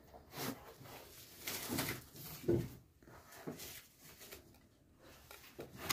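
Fingers rubbing and rustling through a hydrangea seedling's dry, clay-caked root ball and twiggy stems, soil crumbling off, in a series of short scratchy rustles with a louder one about halfway through.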